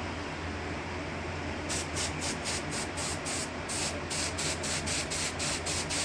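Aerosol smoke-detector test spray hissing in rapid short bursts, about four a second, starting a couple of seconds in: canned test smoke sprayed at a smoke detector to set it off during a fire alarm walk test.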